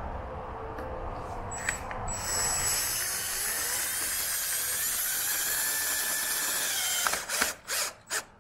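Cordless drill driving a screw into a side skirt overlay: the motor runs steadily for about five seconds, its pitch creeping up, then breaks into a quick run of sharp clicks near the end.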